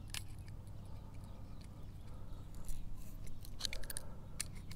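Adjustable wrench working a brass quick-connect coupler tight on a threaded brass hose fitting: a few faint, short metallic clicks and scrapes.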